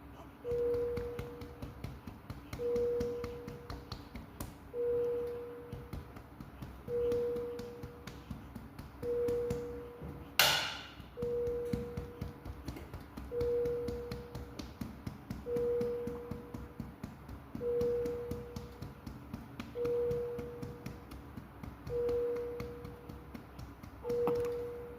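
Hand patting a baby's back to burp it: light, quick taps, with one sharper, louder tap about ten seconds in. Under them, a single-pitched medical monitor beep repeats about every two seconds, each beep fading out.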